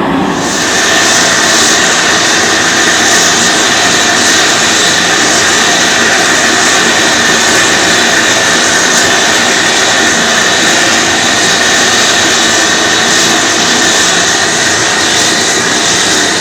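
Large gas torch hissing steadily as it heats a copper boiler for silver soldering, with a steady high whistle in the flame noise. The hiss turns sharply brighter and louder about half a second in.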